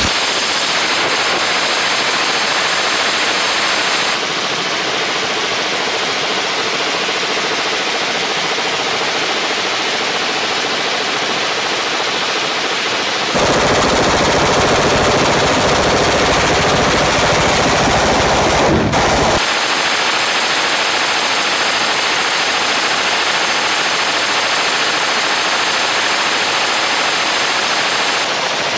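A full-auto 5.56 mm M249 SAW firing one continuous long burst through a Silencerco SWR suppressor, the shots coming so fast that they blur into a dense, unbroken rattle. The suppressor is glowing red-hot under the sustained fire of a torture test. The loudness and tone shift abruptly a few times along the way.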